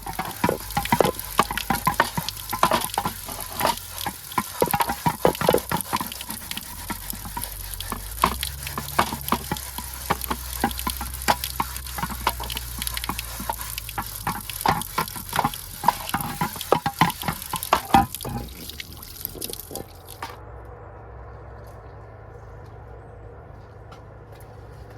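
A steady hiss with many quick, irregular clinks and knocks of a utensil against a pan or dish. Both stop about twenty seconds in, leaving a quieter steady background.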